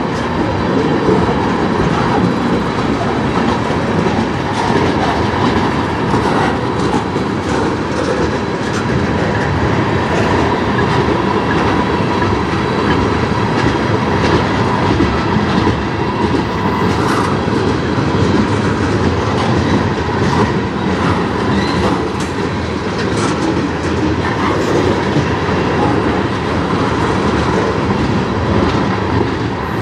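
Freight train tank cars and covered hoppers rolling past, steel wheels clacking over rail joints above a steady loud rumble.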